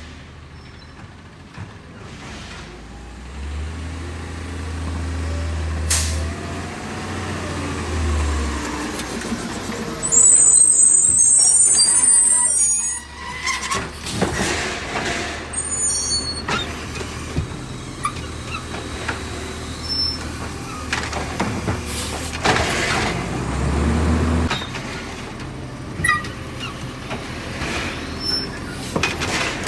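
Green LNG-fuelled Labrie Automizer garbage truck working: its engine swells up to a loud low drone twice, and a loud air-brake hiss comes about ten seconds in. Several sharp bangs come in between, typical of the truck's slamming.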